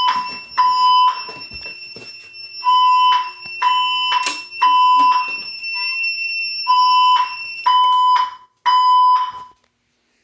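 Fire alarm system sounding its evacuation tone: a 1 kHz beep in the temporal-three pattern, three half-second beeps and then a pause, repeated, over a steady high-pitched tone. It is set off by a smoke detector under test. The tones stop about nine seconds in.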